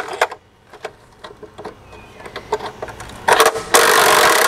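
A few metal clinks of tools against a rusty frame, then about three seconds in a cordless impact driver hammers on a rusted frame bolt, first in a short burst, then in a longer run that carries on near the end.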